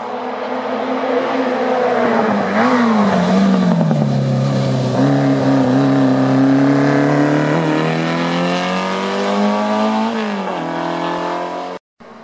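A small racing saloon's engine at full throttle on a hill-climb course. It builds up as the car approaches, and the note climbs and drops sharply at several gear changes. Near the end the pitch rises steadily, then falls, and the sound cuts off suddenly.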